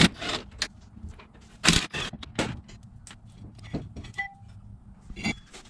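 Scattered metal clinks and knocks as a brake caliper is worked off a C5 Corvette's front drilled and slotted rotor, with several sharp clicks, the loudest a little under two seconds in.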